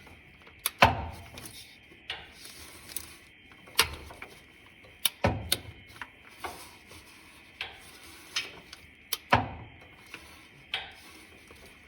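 Metal hand tools clicking and clinking as the fuel pump mounting bolts on a Mopar 440 engine are tightened with a wrench in short strokes. There are about eight sharp clicks, spaced unevenly.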